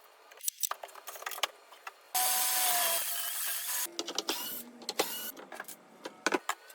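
A power tool runs for about two seconds with a steady motor tone, among clicks and knocks of wood and hardware being handled.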